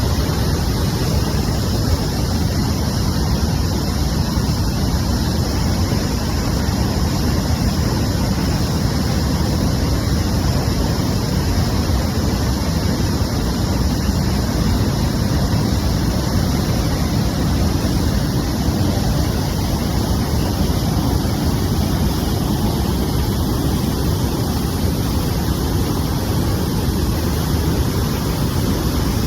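A large waterfall: a loud, steady rush of falling water, deepest in the low end and unbroken throughout.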